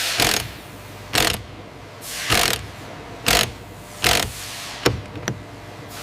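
Sawmill woodworking machinery: a steady machine hum with short, loud rushing bursts about once a second, then two sharp clicks near the end.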